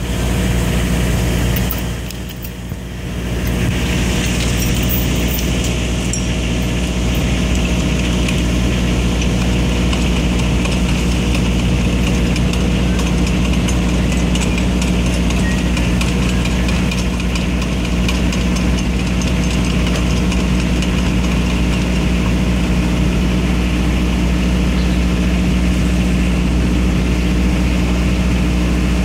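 Service truck's engine idling steadily, dipping briefly about two seconds in.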